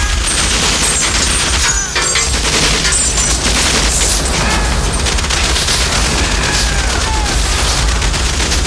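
Heavy, continuous automatic gunfire from several guns at once, with bullets striking metal amid low booms.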